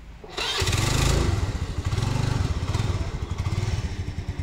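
A motorcycle engine starts about half a second in and runs at idle with a quick, even beat.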